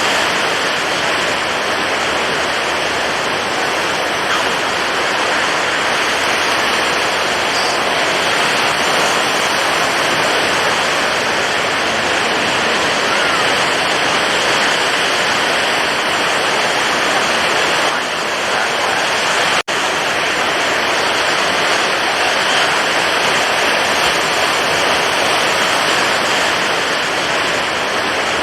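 Stormy ocean waves breaking: a dense, steady wash of rough surf that cuts out for an instant about twenty seconds in.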